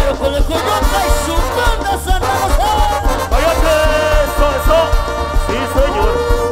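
Live tierra caliente band music: melodic lines that bend in pitch over a steady, heavy bass beat, with a long held note starting near the end.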